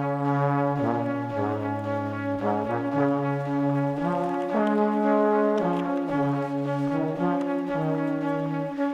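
Background music: brass instruments playing a slow melody of sustained notes that change every second or so.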